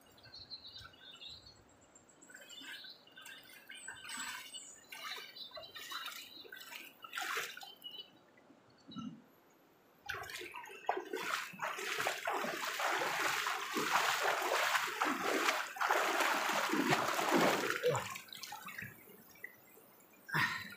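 River water splashing and sloshing. First come scattered separate splashes, then after a short lull a louder, continuous run of splashing for about eight seconds, then one more splash near the end.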